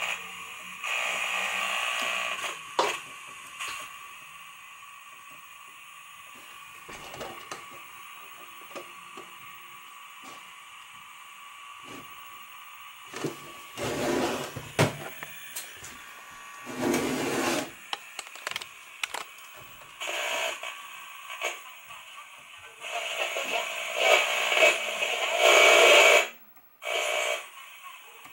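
Static hiss from the portable TV-radio set's speaker, with a steady whistle through the first half and several louder stretches of static, interspersed with clicks and knocks from the set's controls being handled.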